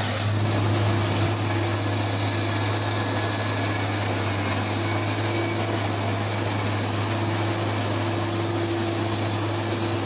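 Large railway track-construction machine running: a steady engine and cooling-fan drone with a constant low hum and a faint higher tone.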